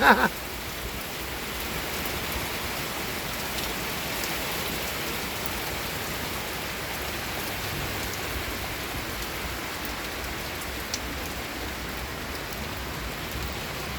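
Heavy rain falling steadily, an even, unbroken hiss of rain pouring down on surfaces.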